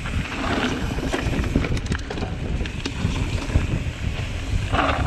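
Wind buffeting the action camera's microphone over the rumble of mountain bike tyres rolling fast on a dirt trail. A few sharp rattling clicks from the bike come about two seconds in.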